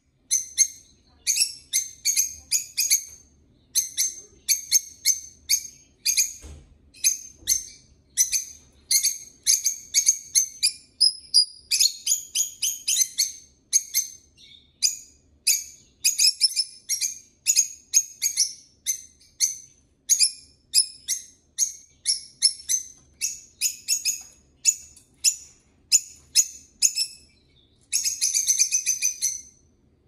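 Pet lovebirds and a budgie chirping: a steady stream of short, shrill, high-pitched chirps in quick runs, with a denser unbroken chatter for about two seconds near the end.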